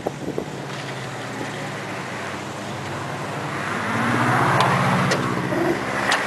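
Road traffic: a passing vehicle's engine grows louder about halfway through and holds, with a few sharp clicks near the end.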